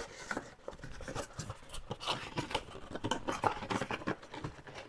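A toy-box packaging insert being worked back into its box by hand: irregular scraping, rubbing and light clicks of packaging material.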